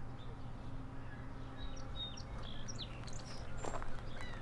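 Small birds chirping: a string of short, high chirps starting about a second and a half in, over a faint steady low hum.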